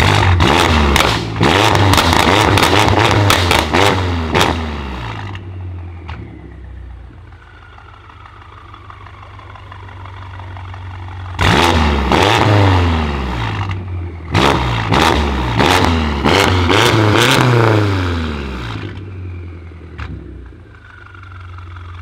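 Tuned 800 hp BMW M5 F90's twin-turbo V8, straight-piped through Supersprint downpipes and a Remus exhaust, revved hard in quick blips while standing, with loud crackles on the lift-offs. It comes in two sets: one at the start lasting about five seconds, and one starting about halfway through and lasting about seven. Between the sets the engine idles, and a faint falling whistle follows each set.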